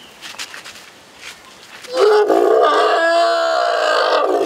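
A young Sri Lankan elephant gives one loud, wavering call about three seconds long, starting about two seconds in: a distressed call from a wounded calf held by the trunk and head for treatment.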